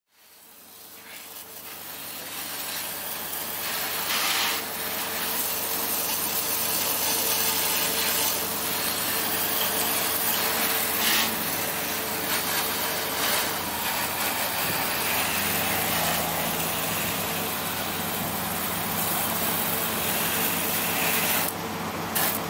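Pressure washer spraying water onto a muddy car body: a steady hiss over a steady motor hum. It fades in over the first few seconds and dips briefly near the end.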